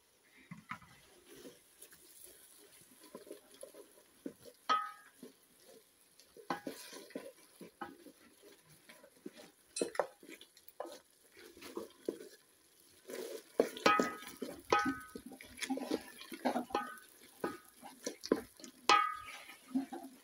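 A wooden spoon stirring and scraping food in an aluminium cooking pot, with irregular knocks against the pot that ring out briefly, busier and louder in the second half.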